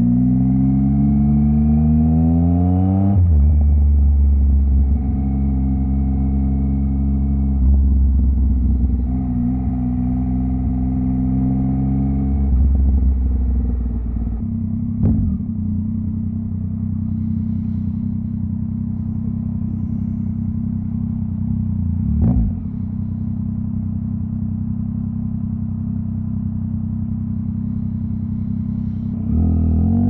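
Yamaha MT-09's inline three-cylinder engine under way: revs climb for the first three seconds, drop, climb again, then hold at a steady lower pitch for the second half. Two short knocks come during the steady part, and the revs rise again at the very end.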